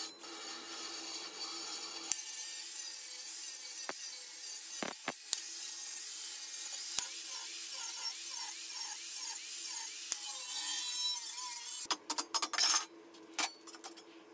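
A tool rasping and scraping against the steel of an empty refrigerant gas can while the can is cut and shaped into a stove. The scrape starts suddenly, turns rhythmic in the middle, and breaks into short bursts near the end.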